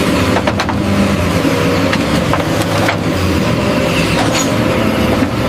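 Excavator's diesel engine running steadily, with a few light clicks over it.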